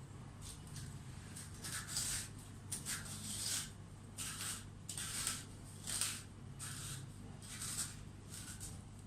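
Metal dolma corer scraping and gouging out the hard flesh of a black radish: a dozen or so short scraping strokes, irregularly spaced.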